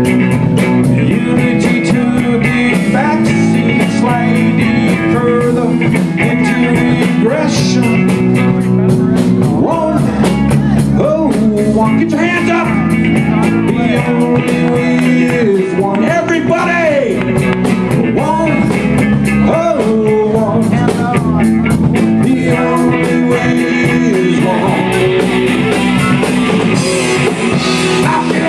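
Live blues-rock band playing: electric guitars over a steady drum-kit beat, with a singer's voice at times.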